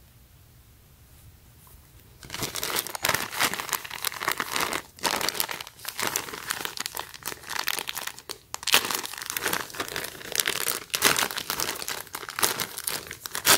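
Clear plastic packaging crinkling and rustling as hands handle a bag of crew socks and pull it open. The crinkling starts about two seconds in, after a quiet moment, and goes on in irregular crackly bursts.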